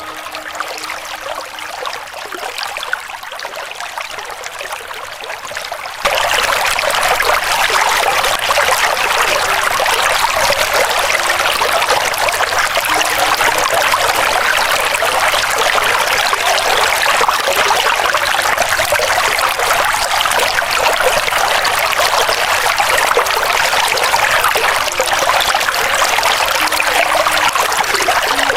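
River water flowing: a steady rushing trickle, softer at first and then suddenly louder about six seconds in.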